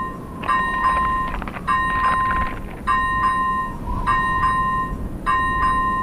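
Level-crossing warning bell sound effect ringing in a steady repeating 'kan-kan', a metallic tone about every second with a double strike in each ring, over a steady low rumble.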